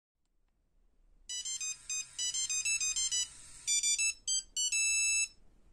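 A bright electronic ringtone-style melody of quick, high notes begins after about a second of silence. It pauses briefly, then ends with a short held chord near the end.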